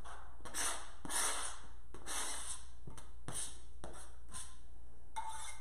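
Spiralized zucchini noodles being scraped off a flexible plastic cutting mat into a pot with a knife. It sounds like a string of short scraping swishes, roughly one or two a second.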